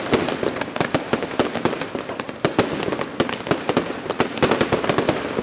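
Palm-effect fireworks going off in a rapid, continuous run of sharp bangs, several a second, as the shots launch and burst.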